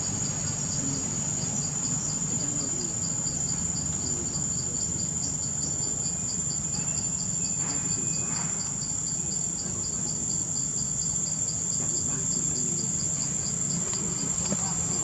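Insects chirring: a steady high-pitched buzz with a second, rapid, evenly pulsed chirp under it, over a low background rumble.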